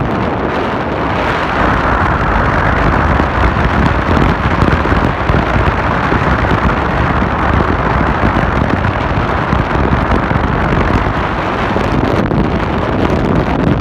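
Steady, loud rushing of wind buffeting the microphone on a ferry's open deck, over a constant low rumble from the moving ship.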